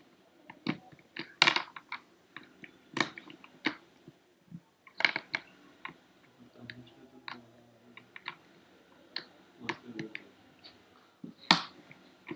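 Plastic Rubik's Cube pieces clicking and snapping as they are pushed into place, in irregular sharp clicks with louder snaps about one and a half seconds, five seconds and eleven and a half seconds in.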